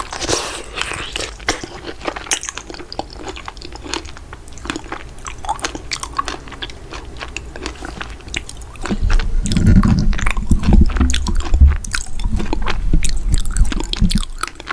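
Close-miked biting and chewing of strawberry mochi, with many small mouth clicks. From about nine seconds in it grows louder and deeper for several seconds, then eases off near the end.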